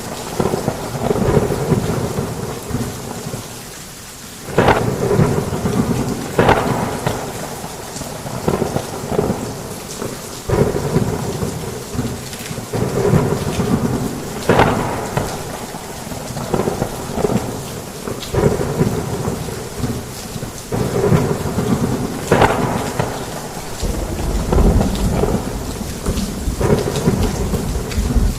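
Heavy rain falling steadily in a thunderstorm, with low thunder rumbling throughout and a sharp crack every few seconds.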